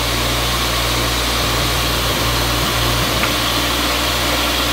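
Old three-phase pedestal grinder/polisher motor running steadily with a buffing wheel on the arbor, giving an even hum. The once locked-up arbor now spins smoothly with no vibration, and the machine sounds good.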